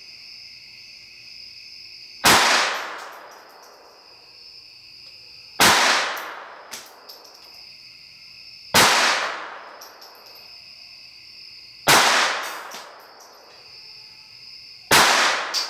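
Five .22 LR gunshots from a Ruger SR22 pistol firing CCI Velocitor rounds, about three seconds apart, each a sharp crack with a short echoing tail in a room.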